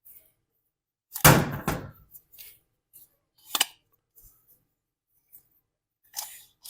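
Workshop handling noise: a brief scraping clatter about a second in, then a single sharp click a couple of seconds later, with a few faint knocks.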